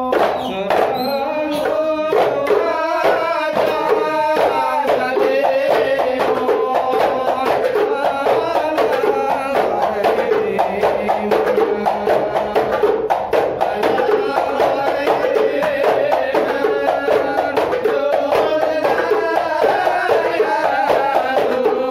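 Hadrah Ishari ensemble: voices singing sholawat together over fast, continuous hand-struck frame-drum (terbang) beats.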